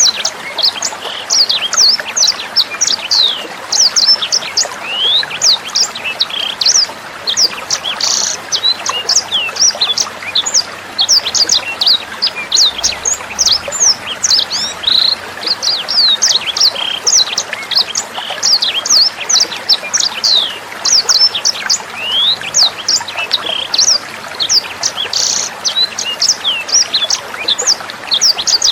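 A sanger songbird singing a fast, unbroken run of sharp, high chirps, many of them quick downward slides, over steady trickling water.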